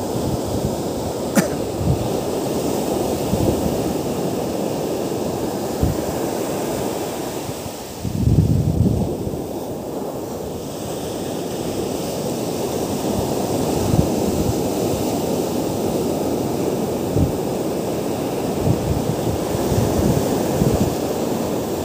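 Ocean surf breaking and washing up a sand beach in a steady rush, with wind buffeting the microphone. The wash swells louder about eight seconds in.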